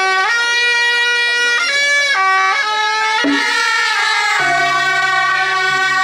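Suona (Chinese double-reed shawm) playing traditional temple music: loud, nasal held notes that step from pitch to pitch every second or two. A lower sustained note joins about four and a half seconds in.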